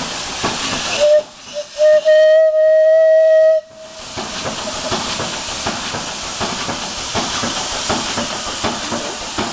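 Ruston Proctor portable steam engine hissing steam, with its steam whistle blown: three short toots about a second in, then one steady blast of about a second and a half that cuts off sharply. The hiss carries on loudly before and after.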